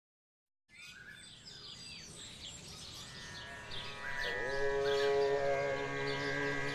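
Birds chirping and calling in many short notes after a moment of silence. About three seconds in a steady musical drone fades in under them, and a little later an instrument note slides up and holds, as music begins.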